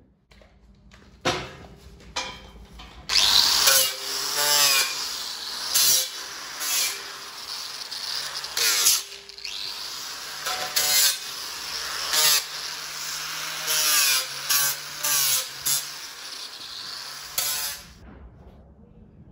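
Angle grinder spinning up and grinding the cut edges of a notched steel I-beam flange. Its whine dips in pitch each time the disc bites into the steel and rises again as it eases off, and it stops near the end.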